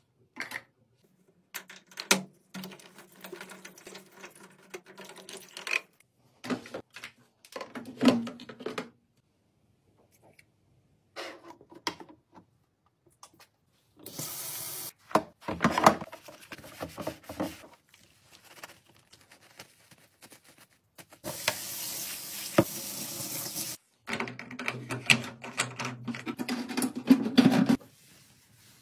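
A string of short household cleaning sounds, cut together with abrupt breaks: clicks and knocks of plastic parts at a washing machine's drain-filter hatch, tap water running into a stainless-steel sink in two stretches, one brief and one of about three seconds, and a cloth rubbing.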